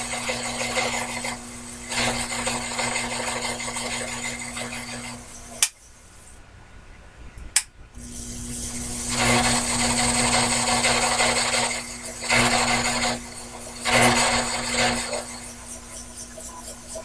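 Sherline mini lathe running with a steady motor hum and the hiss of the tool cutting the work. It stops a little over five seconds in, with two sharp clicks, and starts again about three seconds later, cutting in several loud stretches.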